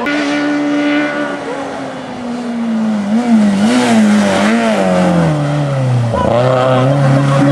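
Peugeot 106 rally car's engine running hard, its note falling as it slows for a tight bend, wavering with throttle blips and gear changes, dipping lowest about six seconds in, then rising again as it accelerates out of the corner.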